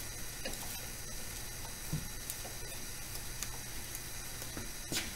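Steady low hiss and hum with a few light clicks and knocks as a gloved hand handles the open Bridgeport 8F power feed gearbox. The sharpest knock comes near the end.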